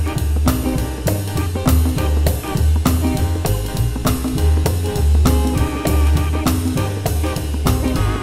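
Funky C minor blues play-along band track: drum kit keeping a steady beat over a repeating bass line, with a wavering melodic lick played over it about six seconds in.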